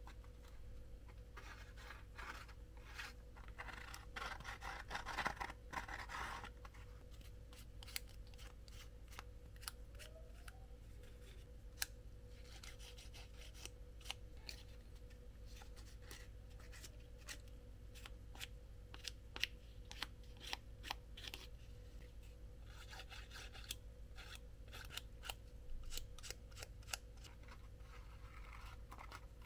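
Scissors cutting cardboard: a run of sharp snips and clicks with stretches of rasping, scraping cuts, the loudest a few seconds in. A steady low electrical hum lies underneath.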